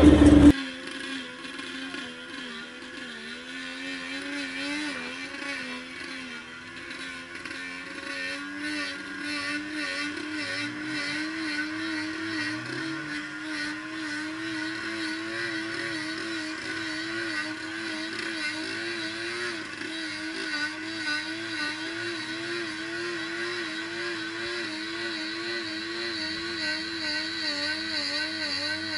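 Off-road 4WD vehicle's engine running on a dirt trial section, heard from a distance, its note wavering up and down in pitch about once a second as the revs rise and fall.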